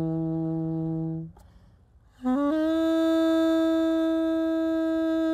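A held low note cuts off about a second in, and after a short silence a saxophone enters with a few quick notes and then sustains one long steady note.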